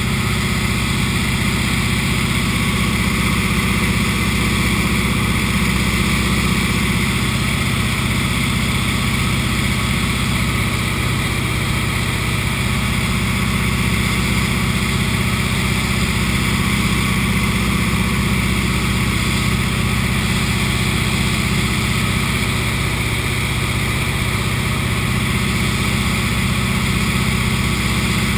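Single-engine bush plane's piston engine and propeller running at a steady, unchanging drone, heard from inside the cockpit.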